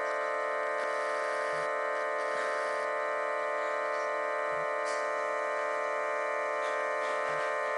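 Electronic organ holding one steady, unchanging chord of several notes, sounded by the weight of a cat lying across the keys.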